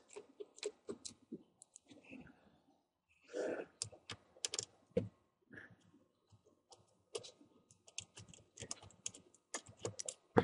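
Scattered light clicks and ticks of hands and a small screwdriver working the metal and plastic of a laptop's LCD panel and lid frame as the panel's mounting screws are taken out. There is a brief rustle about three and a half seconds in.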